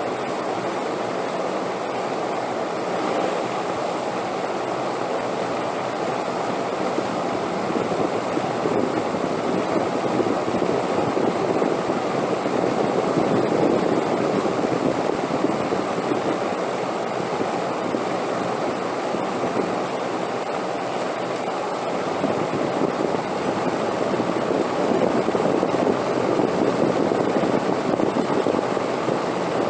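Wind blowing steadily, a continuous rushing noise that swells in gusts around the middle and again near the end, easing in between.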